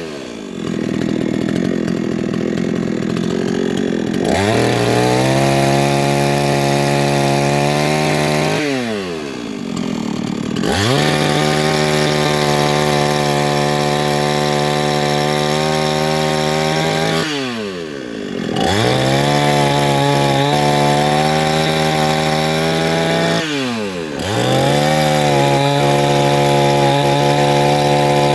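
Alpina A510 two-stroke petrol chainsaw cutting logs at full throttle, its engine note dropping toward idle and sweeping back up to full revs about four times as the throttle is let off and squeezed again between cuts.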